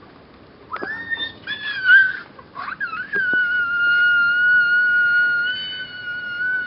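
A high-pitched voice: a few short wavering cries, then one long steady squealing note held for about three and a half seconds that cuts off suddenly.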